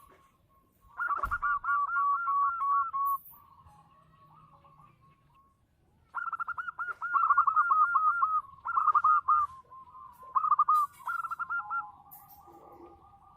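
Zebra dove (perkutut) cooing in two long phrases of rapid, evenly repeated coo notes: the first about a second in and lasting about two seconds, the second starting about six seconds in and running nearly six seconds. Fainter cooing fills the gaps, and a sharp knock comes just as the first phrase begins.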